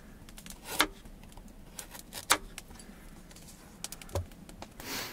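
Kitchen knife chopping a carrot into rounds on a plastic cutting board: irregular sharp taps of the blade striking the board, one louder than the rest near the middle. A brief rustle near the end.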